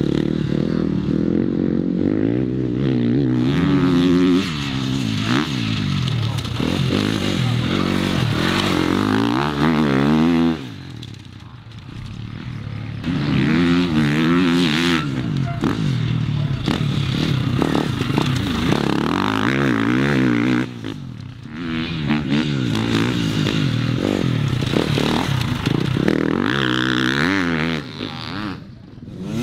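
Enduro dirt bike engines revving hard through a grass special test, the engine note climbing and falling over and over with throttle and gear changes. The sound drops away briefly three times as one rider gives way to the next.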